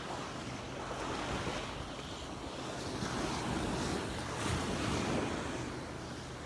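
Gulf of Mexico surf breaking and washing up the beach, swelling louder midway, with wind buffeting the microphone.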